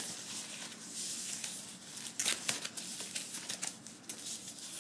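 Thin white paper wrapping crinkling and rustling in the hands as it is pulled open, with a few sharper crackles a little over two seconds in.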